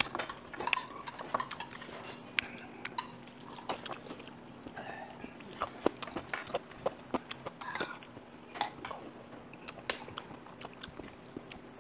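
Cutlery clicking and tapping against dishes, with chewing, as someone eats dumpling soup at a table. A faint steady hum sits underneath.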